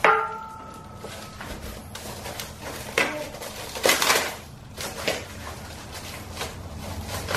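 The steel upright of a Strength Shop Riot Yoke clanks as it is stood on end, ringing briefly with a clear metallic tone, followed by rustling and tearing of its packaging wrap in a few bursts.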